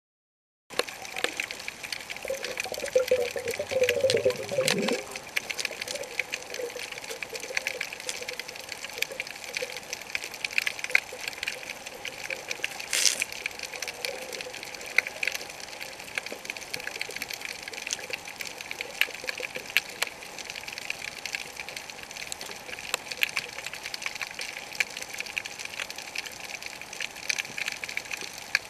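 Underwater sound on a coral reef: a steady, dense crackling of fine clicks, the usual background of snapping shrimp. A short wavering gurgle in the first few seconds and a single sharp click about halfway.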